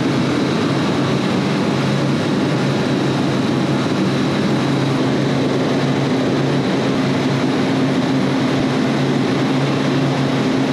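Steady drone of running commercial refrigeration machinery (compressors and condenser fans), with a low hum that becomes steadier about halfway through.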